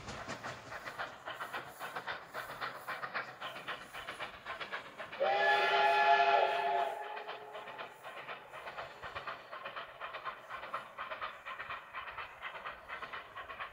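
Steam locomotive whistle blowing one blast of about a second and a half, several tones sounding together, about five seconds in, over the steady rhythmic beat of the steam train running away on the rails.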